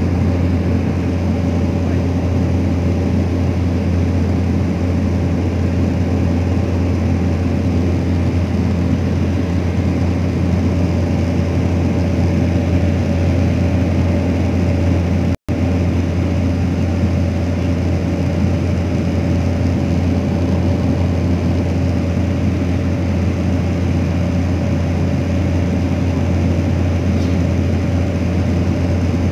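Cabin drone of a single-engine turboprop plane in cruise: a steady low hum with a few steady higher tones over it, broken by a split-second gap of silence about halfway through.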